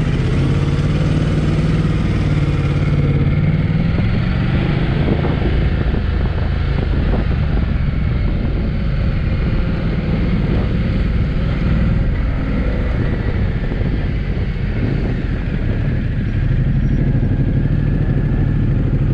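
Ducati motorcycle engine running at low speed as the bike rides along, with a steady rush of wind and road noise.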